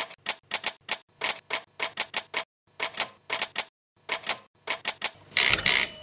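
Manual typewriter typing: a quick run of sharp keystrokes, about four a second with a couple of short pauses. Near the end comes a longer, louder rasp as the carriage shifts.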